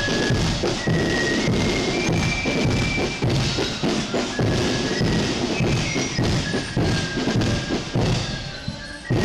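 Marching band music with drums beating steadily under a high melody line. The music is briefly quieter near the end.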